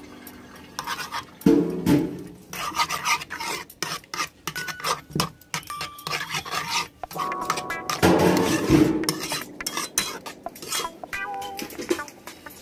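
Metal spoon stirring garlic butter sauce in a pan, scraping and clinking against the pan in many short strokes.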